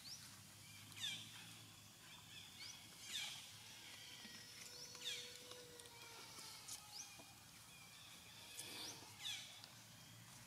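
Faint high-pitched chirping calls, each a quick downward sweep, repeating about every two seconds over a quiet outdoor background.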